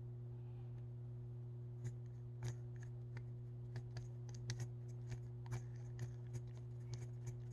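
Light, irregular clicks and ticks from a hand-worked puppet eye mechanism, its wooden ball eyes moving in the carved wooden face, starting about two seconds in. A steady low hum runs underneath.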